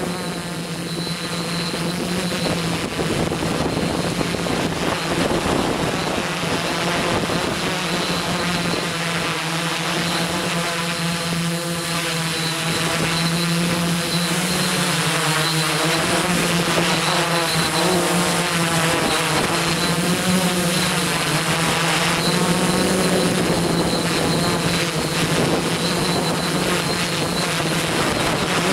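Quadcopter's electric motors and propellers buzzing steadily in a hover, their pitch drifting slightly up and down as the motor speeds adjust.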